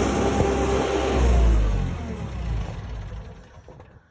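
Skid steer engine running loud, its pitch sagging, then dying away over the last two seconds to near quiet.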